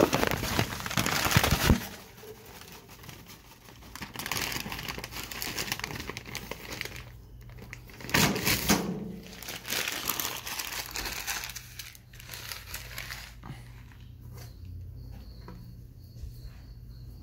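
Rustling and crinkling handling noise, loud for the first couple of seconds and again about eight seconds in, then quieter with light clicks.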